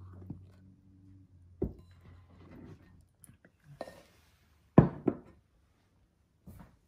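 A plastic measuring cup scooping thick sourdough starter out of a mixing bowl: soft scrapes and a clunk against the bowl, then two sharp knocks close together about five seconds in, the loudest sounds.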